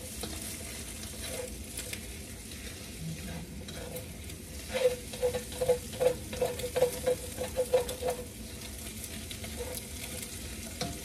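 Eggs, garlic and onion sizzling in oil in a hot wok while a silicone spatula stirs them. From about five to eight seconds in, a quick run of spatula strokes scraping against the pan, about three or four a second.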